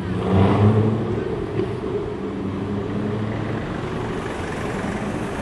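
Ford GT's supercharged V8 running, with a short rise in revs about half a second in, then settling back to a steady run.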